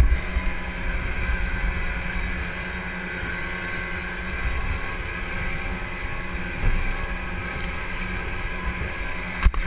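Twin Suzuki outboard motors running steadily at speed, about 31 mph, with the boat back on both engines. Wind buffets the microphone in gusts, and water rushes past the hull.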